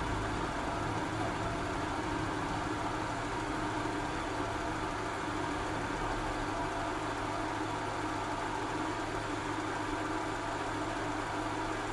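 Mazda Familia Astina engine idling steadily. A noisy water pump is mixed in, which the owner thinks makes up most of the sound.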